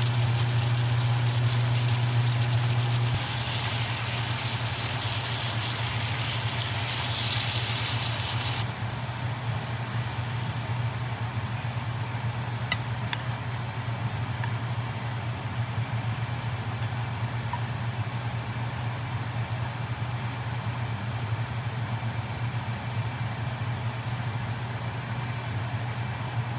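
Stir-fried rice cakes, meat and cabbage sizzling in a stainless frying pan on an electric coil stove, over a steady low hum. The sizzle stops about nine seconds in. A couple of light clinks follow as the food is scraped from the pan into a bowl.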